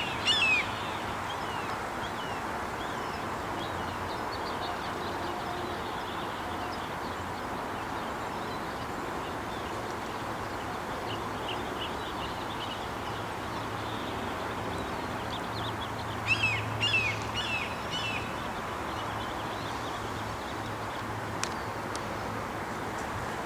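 A bird calling in quick runs of short, falling, high notes: one run right at the start and another about two-thirds of the way through, with fainter scattered calls between, over a steady outdoor background hiss.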